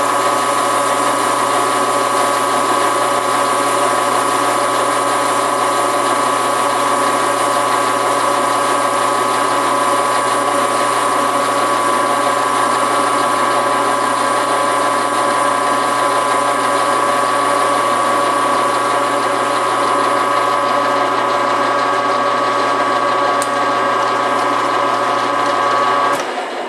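Metal lathe running steadily with a constant gear whine while its cutter takes a cut on the end of a metal spacer bushing; the whine cuts off near the end as the lathe is switched off.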